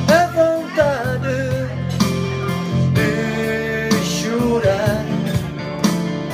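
A man singing a slow love song into a microphone over guitar accompaniment, with two sung phrases: one at the start and one about three seconds in.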